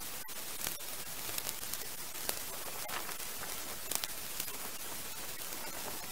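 Shallow stream water running steadily past the microphone, with a few faint clicks and knocks from a spade working in mud and stones in the streambed.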